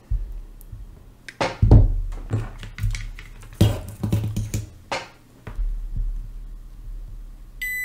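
A few knocks and clatters of hand tools being put down and picked up. Near the end a multimeter in continuity mode starts a steady high beep across the pins of the removed IRLB3034 MOSFET: they are shorted, so the part is dead.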